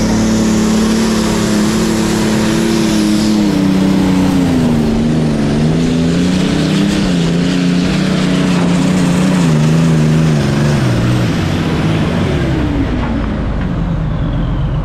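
Pulling tractor's engine running hard under load as it drags the weight-transfer sled, its pitch wavering as the load changes. About eleven seconds in the pitch falls away as the throttle comes off and the pull ends, leaving a lower running sound.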